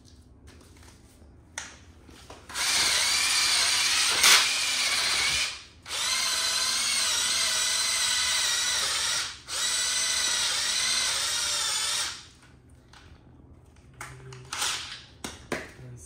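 Electric drill spinning a fine-grit sanding disk against the floor, run in three bursts of a few seconds each. Its whine wavers slightly in pitch, and there is a sharp knock during the first burst. Lighter knocks and handling noises come near the end.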